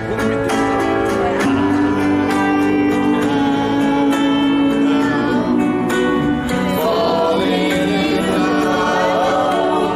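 Amplified singing into a street busker's microphone, played through a small portable speaker with instrumental accompaniment; a young woman from the crowd sings with the busker.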